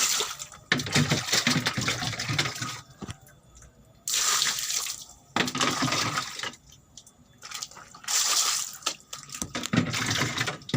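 Water running and splashing in about six bursts of one to two seconds each, with short pauses between.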